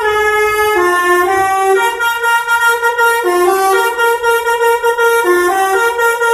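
Bus telolet horn, a set of musical air horns, playing a tune: loud sustained notes that step up and down in pitch, repeating a short phrase every two to three seconds.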